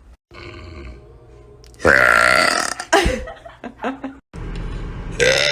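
A young woman burping loudly: one long burp about two seconds in, lasting roughly a second, and another long burp beginning near the end.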